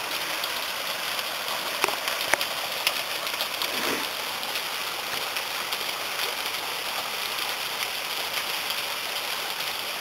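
Steady rush of falling water from a small waterfall, with a few sharp clicks between two and three seconds in.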